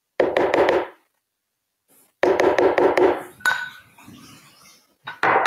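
Spatula scraping sticky date paste out of a glass bowl into a blender jar: two bursts of quick scraping strokes about a second each, then lighter knocks and a shorter burst near the end.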